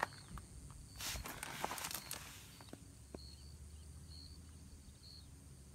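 Quiet outdoor background while a rifle is held aimed: a few faint rustles and small clicks, with faint short high chirps repeating every half second or so.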